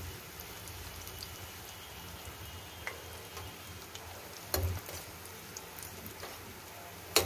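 Bread slices deep-frying in hot oil, a steady fine crackling sizzle. A spatula knocks against the pan twice, about four and a half seconds in and again at the very end.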